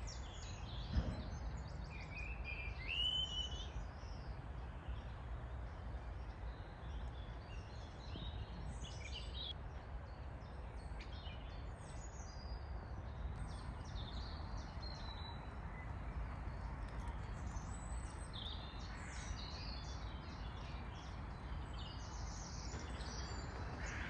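Several songbirds singing in a spring woodland, short chirps and warbling phrases overlapping throughout, over a low steady rumble. A single sharp knock about a second in.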